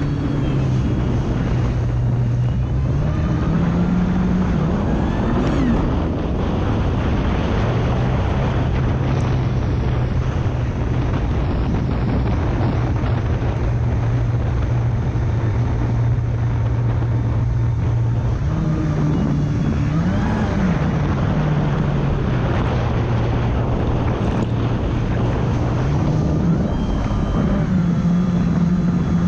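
Kawasaki Ultra 300X jet ski's supercharged four-cylinder engine running under way, its pitch rising with the throttle a few seconds in, again around two-thirds through and near the end, easing back between. Wind and water rush steadily over the bow-mounted microphone.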